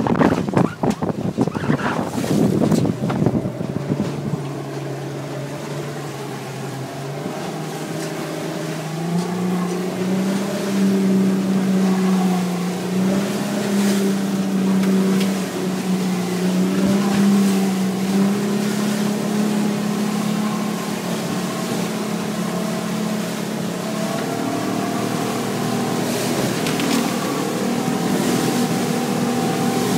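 Outboard motor of a 5.3 m aluminium half-cabin boat running under way through choppy sea, heard from inside the cabin; its pitch climbs about eight seconds in and then wavers. Water and wind rush along the hull throughout, loudest in rough bursts in the first few seconds.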